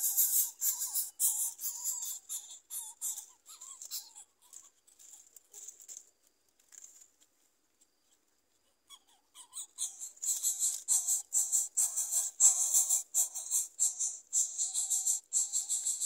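Yellow-vented bulbul nestlings begging: a rapid run of thin, high chirps, about five a second. The chirps fade out for a few seconds near the middle and start up again louder about ten seconds in.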